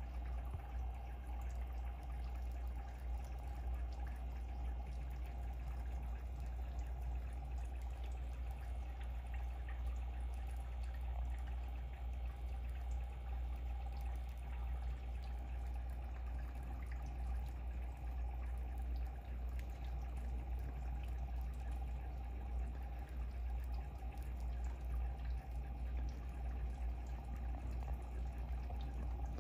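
Aquarium aeration: an air line driving a sponge filter in a fry container, with light bubbling and trickling water over a steady low hum.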